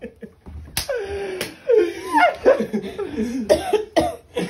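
A woman's loud, sharp cries and sobbing wails. They come in a string of sudden outbursts starting about a second in, each sliding down in pitch.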